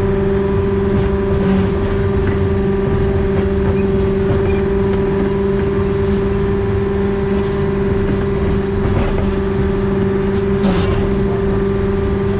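Diesel engine of a narrow-gauge diesel-hydraulic locomotive running steadily under way, a constant drone with a strong steady hum. A few light knocks come through about nine and eleven seconds in.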